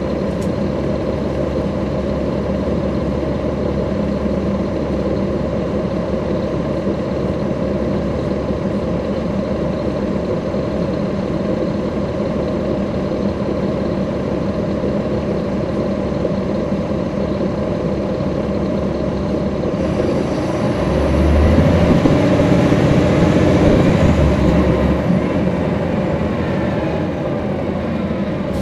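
NABI 416.15 transit bus's Caterpillar C13 ACERT diesel engine, heard from inside the cabin, running steadily. About three quarters of the way through it grows louder for a few seconds, then settles back.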